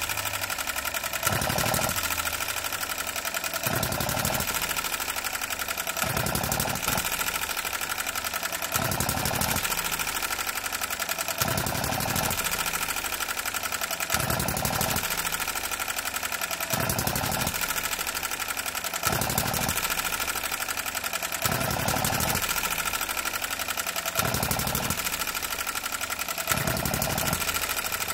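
Enjomor 6cc petrol hit-and-miss model engine running on its own: it fires in a short burst about every two and a half seconds, then coasts on the flywheel with a fast light mechanical clatter until the next burst. This is the governor letting the engine fire only as the flywheel slows, typical of a hit-and-miss engine running unloaded.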